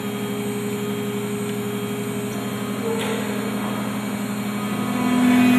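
Spindle of a 3636 CNC router running after the job is started, a steady hum of several tones. About five seconds in it gets louder as one lower tone strengthens.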